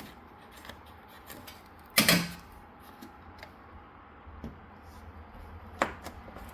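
Chisel prying at the old garage door bottom seal retainer, with one loud knock about two seconds in and a sharper click near the end, and small ticks between.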